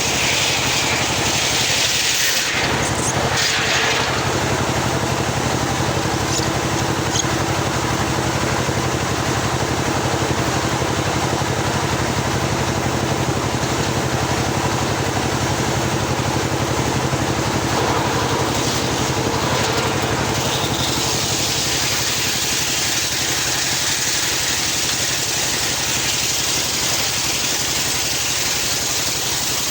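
Homemade circular sawmill running steadily, its blade ripping lengthwise through a long teak log. The high cutting hiss eases a couple of seconds in and grows stronger again over the last third.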